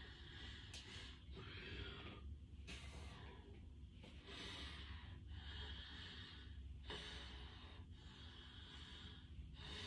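Faint, hard breathing from exertion during a set of single-leg calf raises: even, hissy breaths roughly one a second, with a couple of faint clicks between them.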